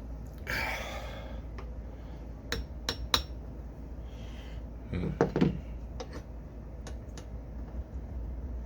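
Metal-on-metal taps and clinks as a pin is knocked out of a torque wrench's handle: a short scrape, then three sharp taps about two and a half to three seconds in, a duller knock a little past five seconds, and a few lighter clicks.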